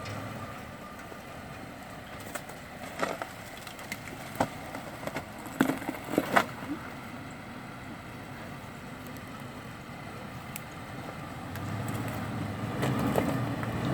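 An off-road SUV's engine running steadily, with a handful of sharp knocks and clunks in the middle.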